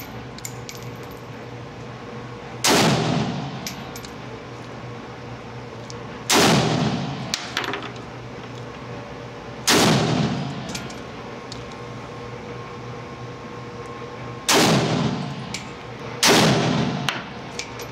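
Century Arms Micro Draco AK pistol in 7.62x39 firing five single shots at uneven intervals, each a loud crack that echoes off the concrete of an indoor range, with light clicks between some of the shots.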